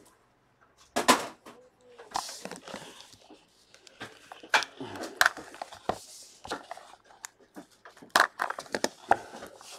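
A cardboard trading-card box being handled and slit open with a small blade: scattered clicks and knocks as it is picked up and turned, with light scraping as the blade runs along the seal.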